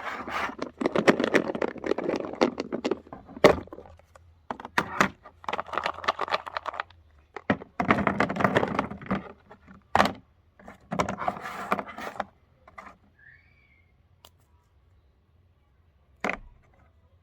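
Meat grinder crushing Oreo cookies: crunching and cracking in bursts of a second or two, broken by sharp clicks, then dying away after about twelve seconds apart from one late click.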